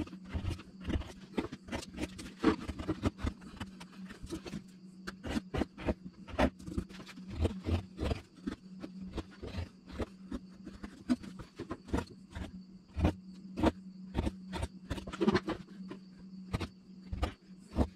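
Carving gouge cutting out the bowl of a cherry wood spoon blank: an irregular run of sharp cuts and knocks, roughly two a second, over a steady low hum.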